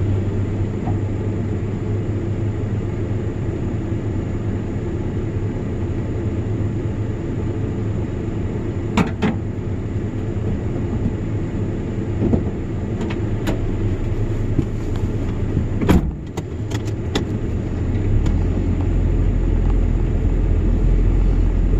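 Vehicle driving, with a steady low engine and road rumble and a few short clicks and knocks. The rumble gets louder about three-quarters of the way through.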